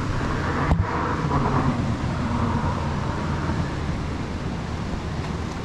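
Steady rush of road traffic noise, with a single knock about three-quarters of a second in.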